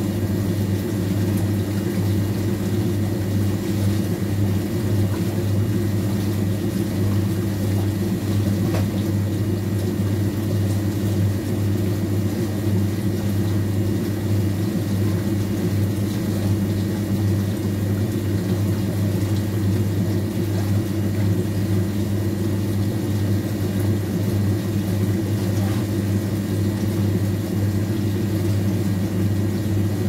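Old washing machine running with a steady low motor hum that holds unchanged throughout.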